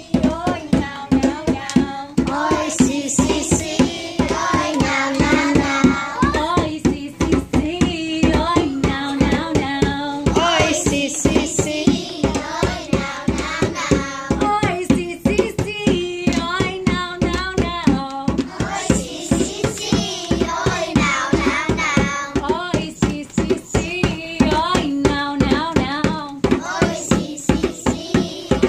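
A group of children singing a song together, accompanied by a djembe hand drum struck with the palms in a steady beat.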